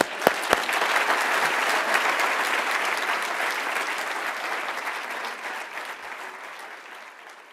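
Audience applauding. The applause builds in the first second, with two sharp thumps, and fades away gradually over the last few seconds.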